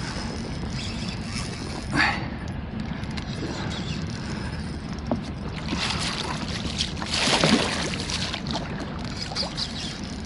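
A hooked pike splashing and thrashing at the surface beside an inflatable boat during the fight, the loudest splash about seven seconds in, over a steady low rush of wind and water.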